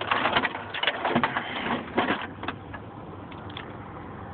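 Plastic parts of an all-in-one printer's housing being handled, knocking and rattling in a quick cluster over the first couple of seconds, then a few light clicks.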